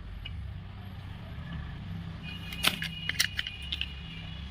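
Metallic clicking and clinking of a tool on a car horn as its adjusting nut is worked, in a cluster of sharp ringing clinks about halfway through, over a steady low hum.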